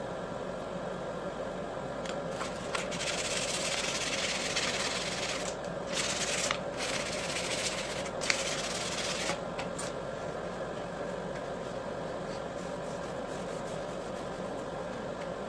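A cloth rubbing on a wooden knife handle as finishing oil is wiped on and off, heard as several stretches of rough rubbing between about two and ten seconds in, with a sharp click near the middle. A steady motor hum runs underneath.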